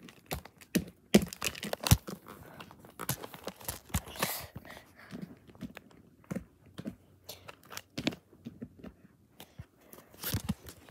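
Hard plastic animal figurines knocking and scuffing against each other and on carpet as they are pushed together by hand in a mock fight: irregular clicks and taps with soft rustling in between.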